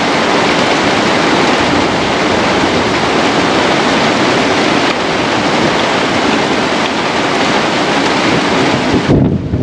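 Heavy rain falling on a car's roof and windows, heard from inside the cabin as a loud, steady hiss. Near the end the high part of the hiss drops away.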